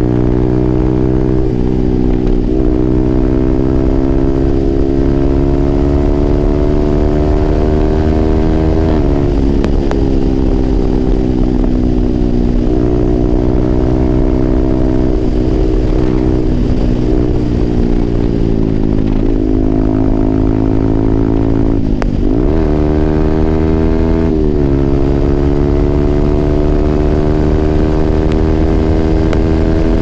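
Yamaha R15M's single-cylinder engine running through an SC Project aftermarket exhaust while riding. The pitch climbs slowly under throttle and drops at gear changes, about nine seconds in and around twenty-two to twenty-five seconds, with a short dip and recovery near twenty-two seconds.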